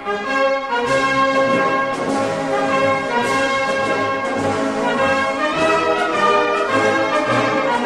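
Instrumental music: a melody of sustained notes over a fuller backing, with the notes changing about once or twice a second.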